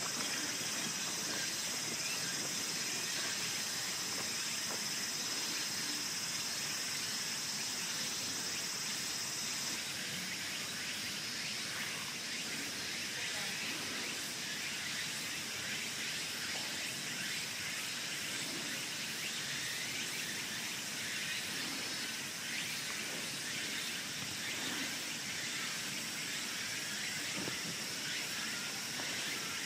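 Outdoor ambience with a steady high-pitched insect drone that stops abruptly about ten seconds in, over a constant background hiss.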